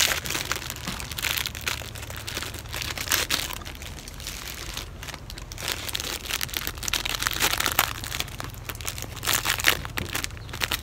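Thin clear plastic wrapper crinkling and rustling in uneven spurts as an ice lolly is worked out of it by hand.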